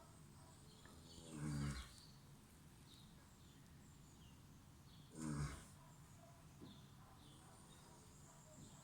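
A sleeping pet snoring: two snores about four seconds apart, each lasting about half a second.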